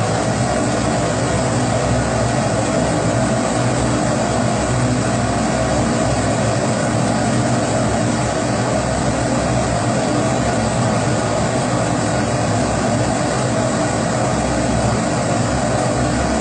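Pressurised kerosene stove (Primus-type burner) burning with a steady, even rushing noise that does not change.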